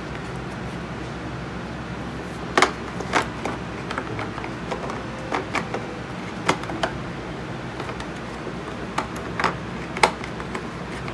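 Irregular clicks and knocks of hand tools being pressed into the molded slots of a hard plastic tool case, the loudest about two and a half seconds in and again about ten seconds in, over a steady low background hum.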